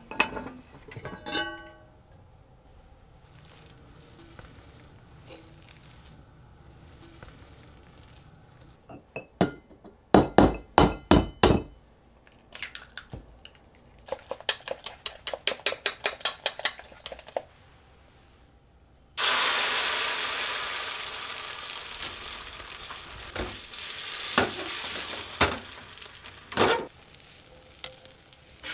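Kitchen work: a clink from the pot and lid near the start, then two bouts of rapid clinking strokes in a metal mixing bowl as eggs are beaten. About two thirds in, egg mixture meets a hot rectangular tamagoyaki pan and sizzles steadily, with a few knocks of chopsticks against the pan.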